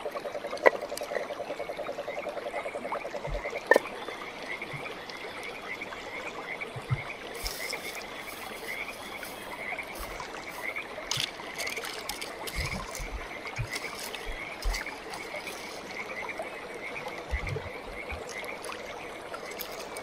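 Frogs calling: a fast pulsing trill for the first few seconds and a higher chirp repeating a few times a second throughout. Two sharp knocks of wood come in the first four seconds, and dry grass rustles as it is pushed into a laid campfire.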